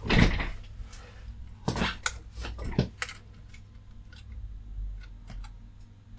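Handling noises on a workbench: a short noise at the start, a cluster of knocks and clicks between about two and three seconds in, then a few faint ticks, over a low steady hum.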